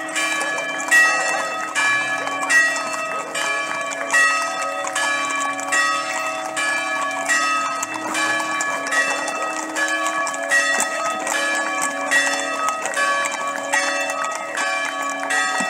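Church bells pealing: several pitched bells struck in quick succession, about two or three strikes a second, the same round of notes repeating over and over.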